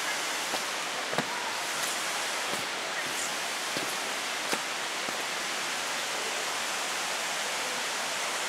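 A waterfall's steady rush, with a few sharp clicks scattered through the first half.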